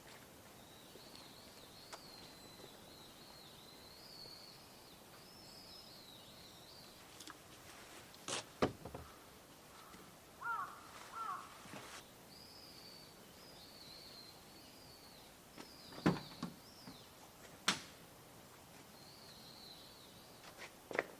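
Birdsong: a small bird singing short, high warbling phrases again and again, with a lower two-note call near the middle. A few sharp knocks or clicks stand out, one near the middle and two more later on.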